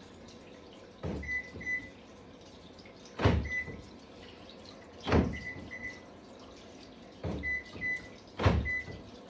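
Daihatsu Move's power door locks cycling five times, each lock or unlock a quick clunk of the lock actuators followed by one or two short beeps of the answer-back buzzer: the newly registered smart key being tested.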